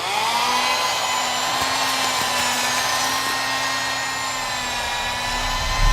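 Electric autopsy bone saw starting up suddenly, then running with a steady high whine as it cuts through the breastbone at the start of a postmortem chest opening.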